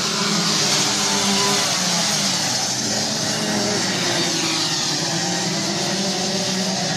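Several two-stroke Rotax Max racing kart engines running at race speed as a pack laps the dirt oval, a steady mixed drone whose pitches waver as the drivers work the throttles.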